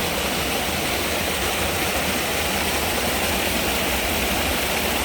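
Steady rush of rainy-season runoff water pouring and splashing, like a small waterfall, where fish are trying to swim up against the flow.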